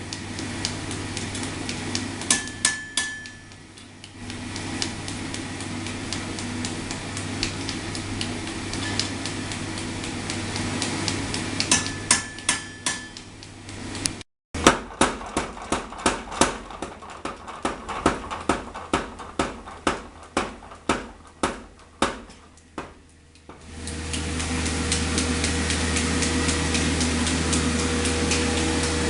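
Hammer blows on Damascus steel at the forge, sharp metal strikes with some ringing, over a steady machinery hum. After a break about a third of the way through, the blows come evenly at about two a second. Near the end a louder steady hum takes over.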